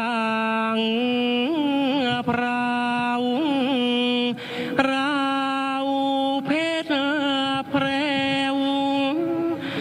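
Thai royal barge chant (kap he ruea): a solo chanter sings long, drawn-out held notes, wavering and sliding between them, with a short pause for breath about four and a half seconds in.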